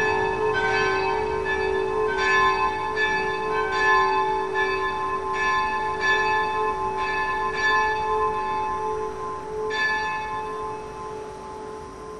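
A single church bell, bell no. 4 of a Lutheran church's peal, swinging and struck by its clapper, with a strong ringing hum under the strokes. The strokes stop about ten seconds in and the hum fades away as the bell rings out.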